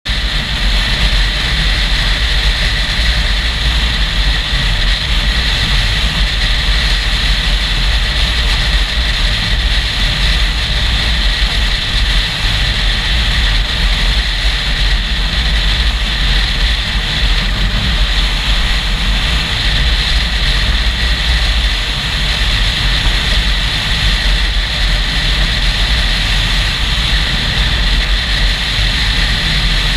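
A motorcycle riding at highway speed: steady engine and road noise under heavy, continuous wind buffeting on the helmet-camera microphone.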